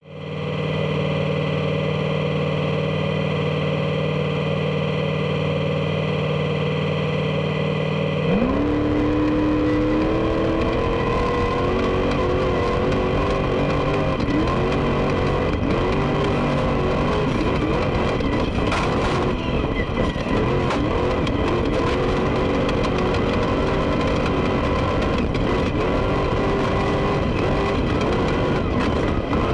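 Class 1 desert race car's engine heard from inside the cockpit: a steady drone for about eight seconds, then the revs rise sharply and the engine pulls hard, its pitch rising and falling with the throttle as the car runs over the desert track.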